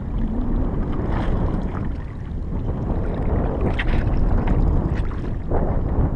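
Wind rumbling on the microphone over water lapping against a kayak's hull, with a few light knocks and splashes.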